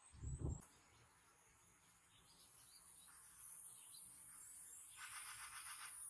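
Faint insect trilling: a steady high thin tone, joined about five seconds in by a fast, evenly pulsing trill. A short, soft low thump comes just after the start.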